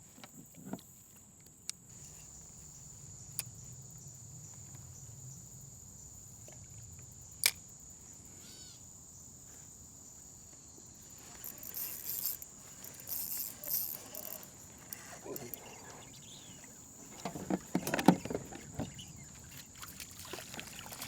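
A steady high-pitched whine throughout, with scattered sharp clicks, one loud one about seven seconds in, and bursts of clattering handling noise in the second half.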